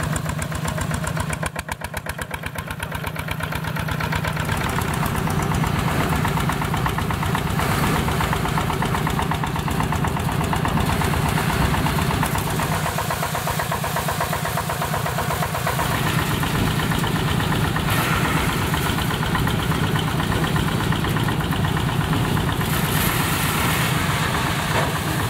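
MZC-4B threshing machine running under load, belt-driven by an engine with a steady, fast knocking beat and a constant hum, as sheaves are fed into the drum. The sound drops briefly about two seconds in, then builds back up and stays steady.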